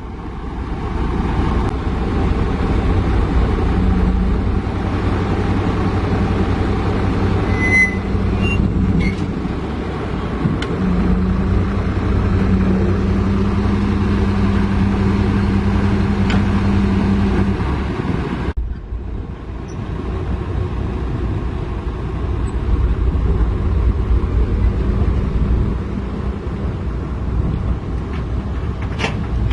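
Heavy diesel engine running steadily, loud and low, with a steady hum that sets in about 4 s in and stops near 17 s. The sound changes abruptly about 18 s in.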